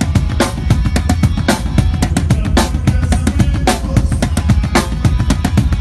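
Live rock band playing loudly with the drum kit to the fore: a fast beat of bass drum and snare over a steady bass, with a cymbal crash about once a second.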